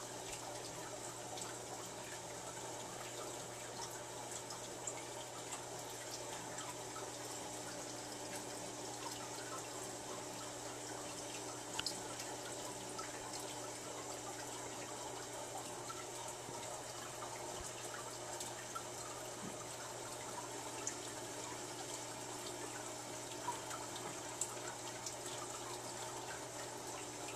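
Water trickling and splashing steadily in a turtle and catfish tank, likely from a filter or pump return, over a low steady hum, with a few scattered drips or clicks.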